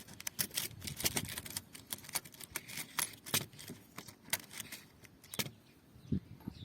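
Small steel roll pins clinking and rattling against each other as they are picked through in an assortment box: a rapid, irregular run of small metallic clicks that thins out after about five and a half seconds.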